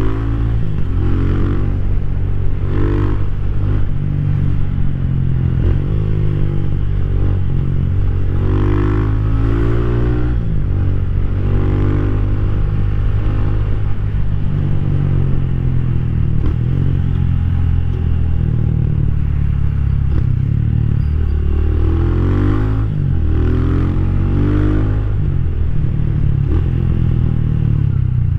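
Rusi Classic 250 motorcycle's single-cylinder LX166FMM engine running under way, its pitch rising and falling several times as the engine speed changes.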